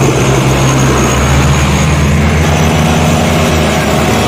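Diesel farm tractor engine running hard with a steady low drone, hauling an overloaded sugarcane trolley.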